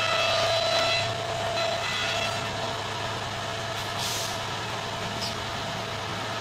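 A steady mechanical whine over a low hum, fading after about two seconds, with a short burst of hiss about four seconds in.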